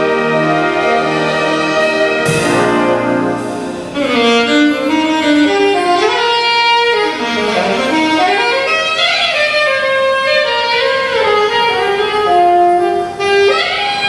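Concert wind band playing: held chords of saxophones and brass, then from about four seconds in, melodic runs that rise and fall over sustained notes, with a new full chord near the end.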